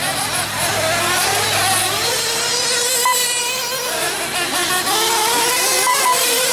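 Several radio-controlled nitro truggies racing on a dirt track, their small high-revving engines buzzing and rising and falling in pitch as they accelerate and back off.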